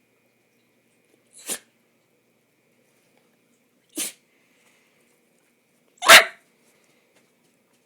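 A dachshund sneezing three times, a couple of seconds apart, with the third sneeze the loudest; the owner puts the sneezing down to allergy season.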